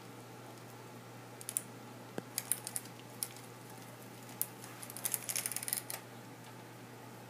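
Metal bicycle chain links clicking and rattling in scattered light clicks as a KMC X10SL chain is fed through the rear derailleur pulleys and onto the cassette teeth, with a quicker run of clicks about five seconds in. A steady low hum lies underneath.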